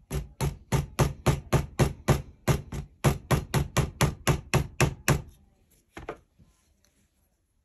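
Light, quick hammer taps on a steel pin punch, about four a second for some five seconds, then one more tap a second later, driving a barrel pin out through the wooden forestock of a percussion long rifle.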